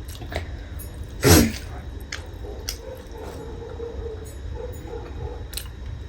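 Close-miked mukbang eating sounds: scattered wet mouth clicks and smacks while chewing. About a second in there is one louder short vocal sound that falls in pitch.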